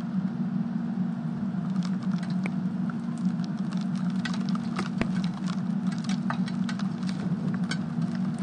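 Rain pattering, with many irregular sharp ticks of drops striking close by, over a steady low hum.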